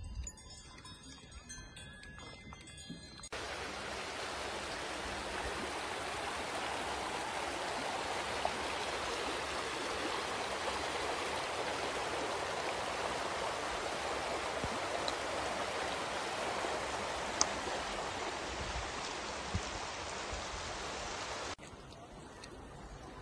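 A mountain stream rushing along a stony channel, a steady splashing rush that starts suddenly about three seconds in and cuts off near the end. Before it there is faint bell-like ringing.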